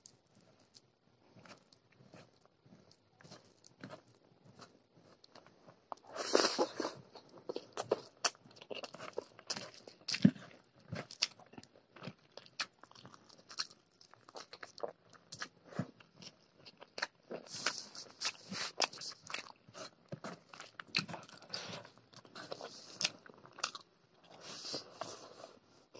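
Close-miked chewing of a mouthful of chicken curry and rice, with wet smacking and many short clicks. Faint at first, it gets louder from about six seconds in.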